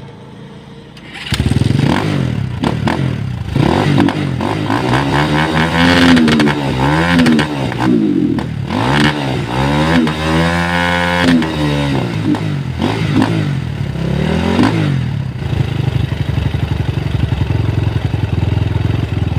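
An engine starting up about a second in and revving up and down repeatedly, then running more steadily for the last few seconds.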